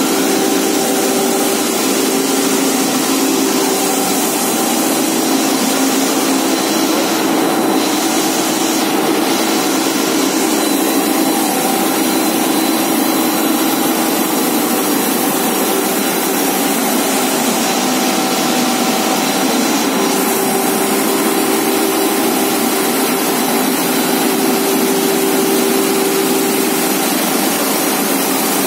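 Industrial processing-line machinery running steadily: a constant motor hum with several steady tones over a loud, even mechanical noise.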